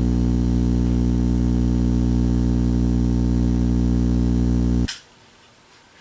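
Microwave oven transformer driving a bare magnetron, giving a loud, steady mains hum with many overtones. It cuts off abruptly about five seconds in, when the power is switched off.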